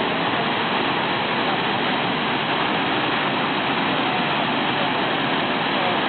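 Waterfall: water pouring over rock ledges into churning whitewater, a steady rush without a break.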